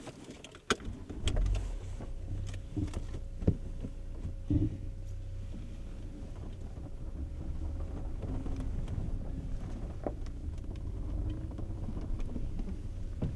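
Car pulling away and driving, heard from inside the cabin: a low engine and road rumble that sets in about a second in and holds steady, with a few sharp knocks and clicks in the first few seconds.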